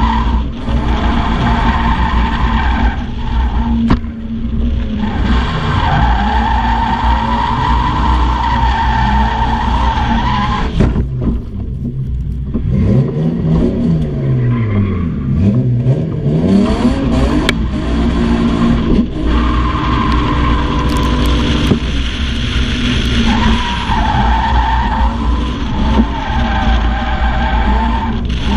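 BMW E36 Compact's 2.5-litre M52 straight-six running hard on the limiter side of the rev range while drifting, with tyres squealing steadily through the slides. Around the middle the squeal drops away and the revs fall and climb again before the tyres start squealing once more.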